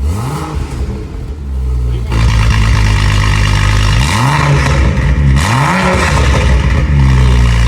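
BMW N55 turbocharged straight-six revved through an aftermarket valved exhaust, blipped three times and falling back each time, noticeably louder from about two seconds in.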